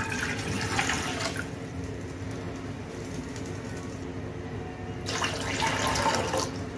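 Water poured in a stream into a metal saucepan, splashing on the bottom of the pan. There are two pours: one ends about a second and a half in, and a second starts about five seconds in and lasts over a second.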